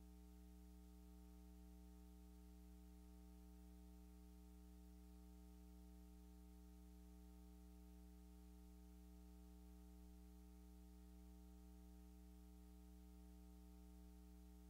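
Near silence: a faint, steady electrical hum, a low buzz with its overtones, that never changes.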